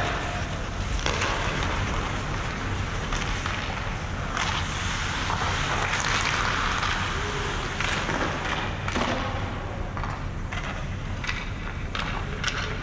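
Ice hockey practice noise: a steady scraping rush of skates on ice with scattered sharp clacks and knocks of sticks and pucks.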